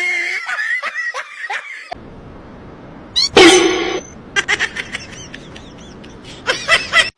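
A pet animal calling in short, wavering high-pitched cries, several in quick succession, with one louder cry about three seconds in.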